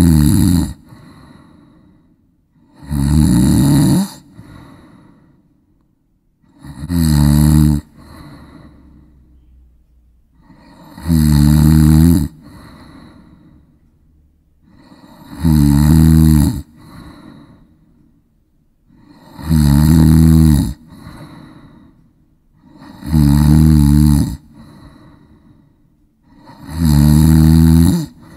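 Loud snoring, about one snore every four seconds. Each snore lasts about a second and is followed by a fainter tail before the next.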